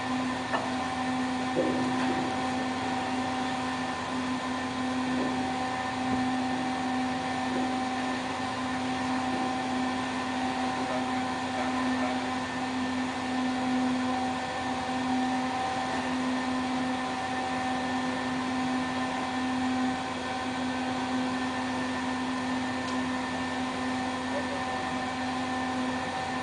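Steady machinery hum from a ship's deck machinery: a low drone with several fixed higher tones over an even noise, with no chain rattle or clanking.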